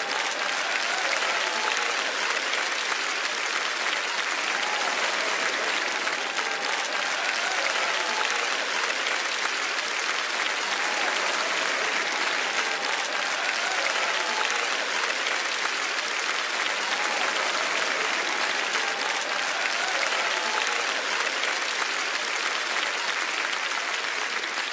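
A crowd applauding steadily, with faint crowd voices mixed in.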